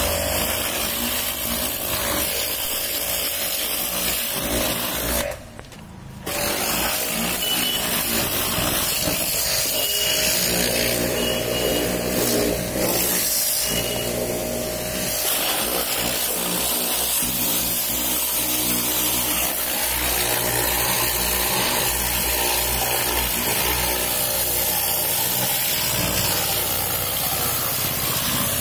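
A motor-driven machine running steadily with a hum and a hiss, breaking off briefly about five seconds in and starting again about a second later.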